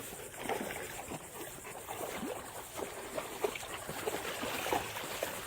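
Labrador retrievers moving about in shallow pond water: scattered small splashes and drips.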